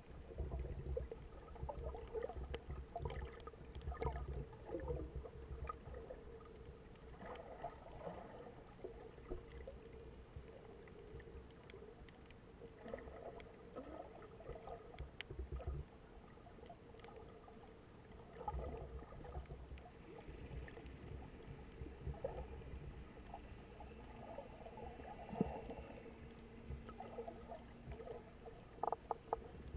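Underwater sound from a snorkeler's camera: a muffled low rumble of water movement that comes and goes, with a faint steady hum and scattered small clicks.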